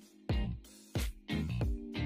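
Background music with a regular beat and held chords.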